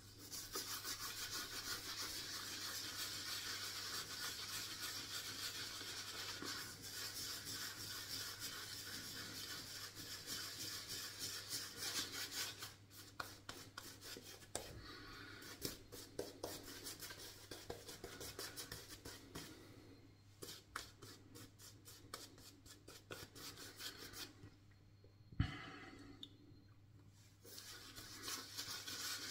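Soft, rapid bristly rubbing of a Yaqi Timberwolf synthetic shaving brush scrubbing and swirling shaving lather over a stubbled cheek and jaw, with a few short pauses. There is a single knock near the end.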